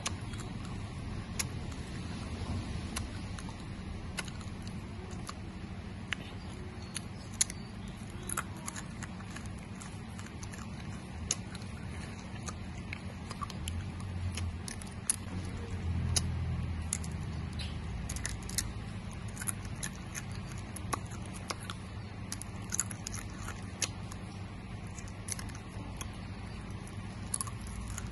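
Close-up eating sounds of dried banana chips being chewed: sharp crackles and mouth clicks at irregular intervals over a steady low hum.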